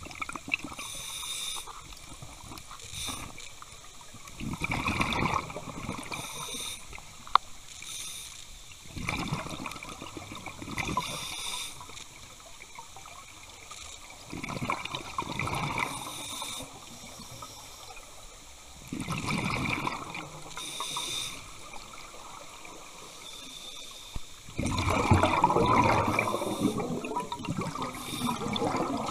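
Scuba diver breathing through a regulator underwater: a hiss on each inhale and a loud bubbling rush of exhaled air about every five seconds, the last exhalation the longest and loudest.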